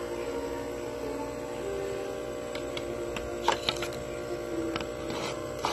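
A steady hum made of several held tones, with a few faint clicks about three and a half seconds in.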